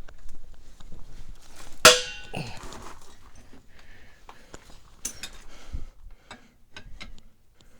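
Metal hardware being handled: scattered clicks and knocks from working a jack and a ratchet tie-down strap. There is one loud ringing metal clang about two seconds in and a sharper clatter about five seconds in.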